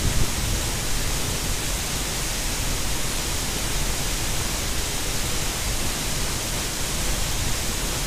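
Steady, even rush of a waterfall's falling water.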